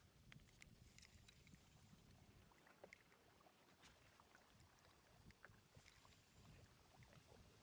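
Near silence: a faint low rumble with scattered faint ticks and clicks.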